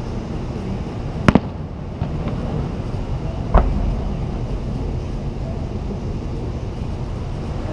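Aerial firework shells bursting in the distance: a quick double bang about a second in and a deeper single bang about three and a half seconds in, over a steady low background rumble.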